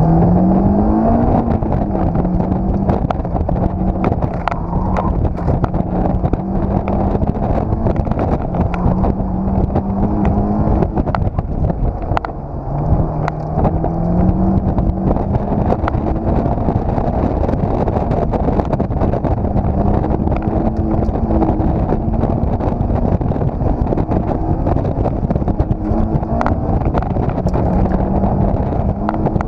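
Honda S2000's four-cylinder engine heard from the open cockpit during a fast autocross run. It climbs in pitch as the car accelerates at the start, holds a fairly steady note with brief dips, drops away near the middle and climbs again, with wind rushing past the open top.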